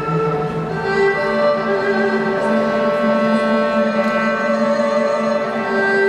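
Slow instrumental music with a bowed-string melody in long held notes, the tune moving to new notes about a second in and again near the end.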